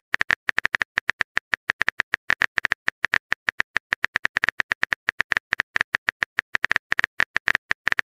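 Rapid phone-keyboard tapping clicks from a texting-story app, about eight even taps a second, signalling a long message being typed out.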